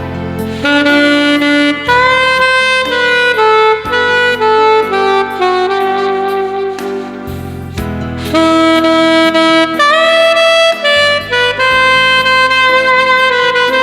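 Alto saxophone playing a slow ballad melody of long held notes, some sliding up into pitch, over a backing track.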